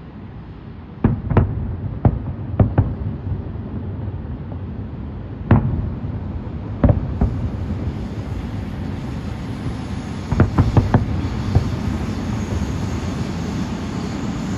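Aerial fireworks bursting: about a dozen sharp bangs in uneven clusters over a continuous low rumble of further explosions, which grows louder about a second in.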